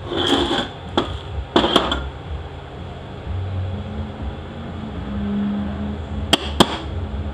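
Metal transmission parts clinking and scraping as they are handled and set down on a metal workbench: a few short rattles in the first two seconds and two sharp clicks near the end.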